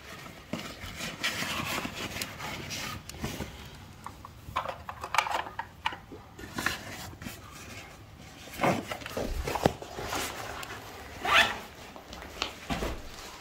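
Irregular rustling, rubbing and scraping of clothing and gear close to the microphone as people move about, with a few sharper swishes and knocks, the strongest about nine and eleven seconds in.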